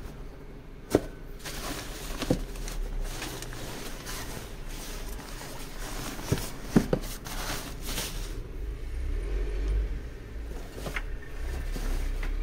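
Rummaging through a box of old belongings: plastic rustling, with a few sharp knocks as a plastic tray and other things are picked up and set down, four knocks in all, two of them close together a little past the middle.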